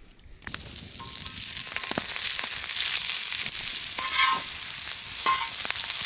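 Sliced onions sizzling and frying on a hot round steel griddle, with a spatula stirring and scraping them across the metal several times. The sizzle comes in about half a second in and builds to a steady hiss.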